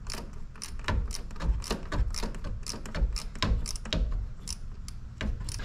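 Irregular clicks and knocks of a hand tool being worked on a small 7 mm bolt inside the engine bay and wheel well, loosening the clamp that holds the stock intake.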